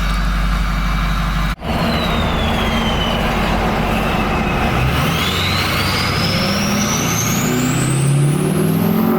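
Ford 6.0 Powerstroke V8 turbo diesel with a KC Stage 3 turbo, its turbo whistle loud over the engine. Early on the whistle sags a little in pitch. From about halfway through the engine pulls harder, and the whistle rises steadily and high as the turbo spools up.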